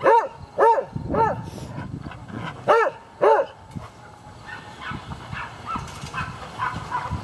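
A dog barking: three loud barks, a pause, then two more, followed by fainter, higher-pitched barking through the second half.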